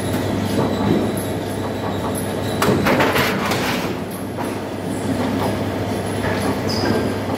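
Sheet-metal guillotine shearing machine running: a steady motor hum and rumble, with a louder metallic clatter about three seconds in.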